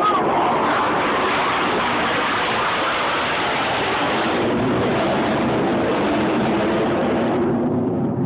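F-16 fighter jet flying low overhead: loud, steady jet engine noise. The high hiss in it drops away near the end as the jet moves off.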